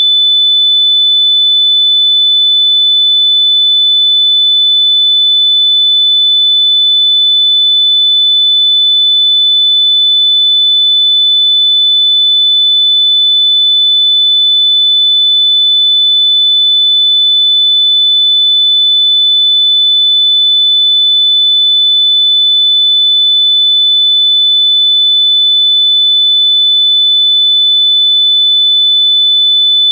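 A loud, steady, electronically generated high-pitched pure tone, held at one unchanging pitch without a break.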